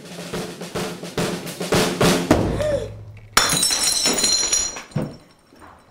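Fast, tense drumming, then about three and a half seconds in a sudden crash with bright ringing shards: a ceramic cup smashing on the floor.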